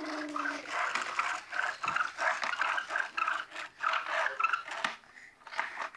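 A toddler making car engine sound effects with her voice: a held hum in the first half-second, then a fast run of short, breathy sputtering noises that stops about five seconds in.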